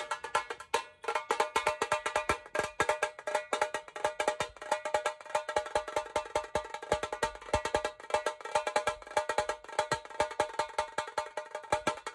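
Fast percussion: a high-pitched drum struck in a rapid, unbroken run of sharp strokes, several a second, each with a bright metallic ring.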